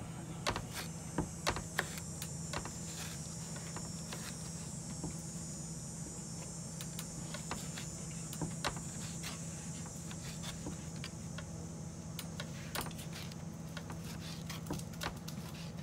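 Knife chopping tomatoes on a plastic cutting board: irregular sharp taps of the blade striking the board. A steady low hum and a steady high hiss run underneath.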